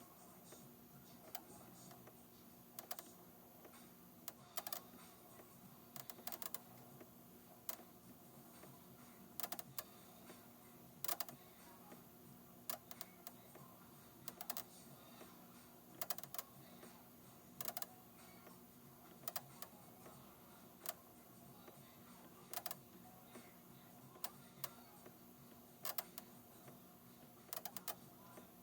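A faulty cassette squeaking in a cassette deck, a short squeak repeating in a regular beat about every 1.6 seconds over a faint steady hum. The cassette itself is at fault, causing the tape to play at an uneven speed.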